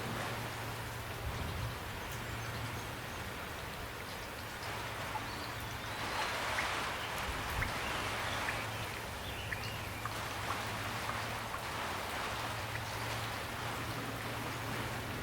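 Steady rain falling, with single drops striking close by now and then; the rain grows a little fuller about six seconds in. A faint low drone runs underneath.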